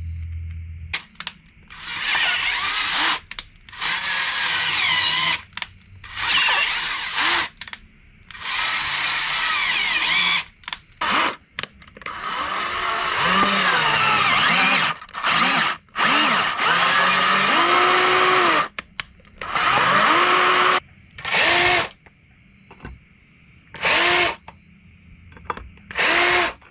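Cordless battery drill cutting holes in a 10 mm thick copper bus bar, running in repeated bursts from under a second to several seconds long. Its motor pitch sags and recovers as the bit bites into the copper, and the drill is working hard.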